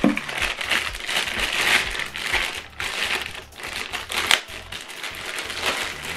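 Clear plastic packaging bag crinkling as hands pull it out and open it, an irregular crackle with one sharper crackle a little past four seconds in.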